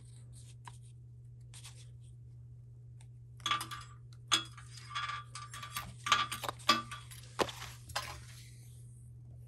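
A thin wire splicing needle and 2 mm Dyneema cord being handled as the cord is drawn through the middle of itself to make a noose: a cluster of small clicks, light clinks and rustling from about three and a half to eight seconds in, over a steady low hum.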